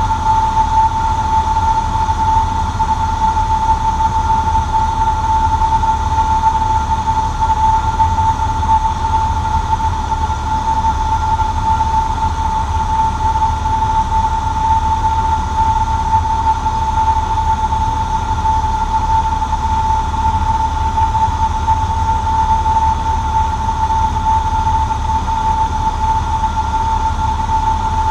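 Cessna 150J's four-cylinder Continental O-200 engine and propeller running steadily, heard inside the small cabin as a continuous low drone with a steady high whine over it.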